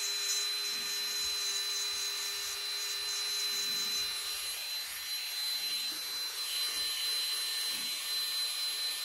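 Electric manicure nail drill with a ceramic bit running with a steady whine while grinding the side nail fold, its bit rubbing on the skin; the drill's tone fades out about six seconds in. A steady high whine carries on underneath.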